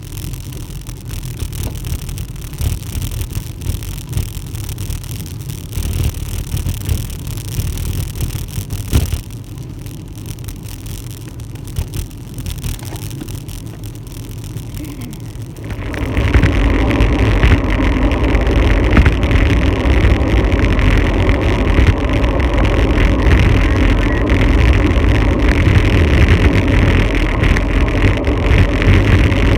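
Rushing wind on a bike-mounted camera's microphone and road noise from a bicycle descending a wet road. The noise jumps much louder a little past halfway and stays loud.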